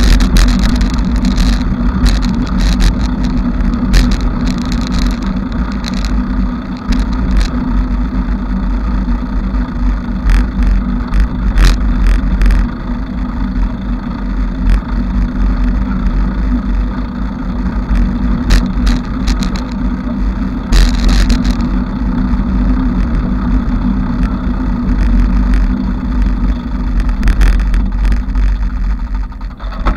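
Bicycle being ridden: a steady low rumble with frequent sharp rattles and clicks throughout.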